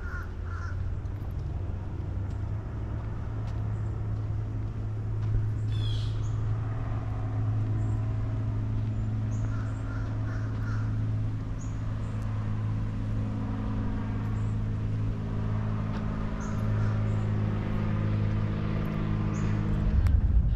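An engine running steadily with a low hum, with a few short bird chirps over it.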